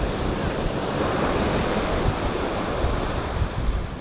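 Ocean surf breaking and washing up the beach, a wave swelling about a second in and easing off, with wind buffeting the microphone.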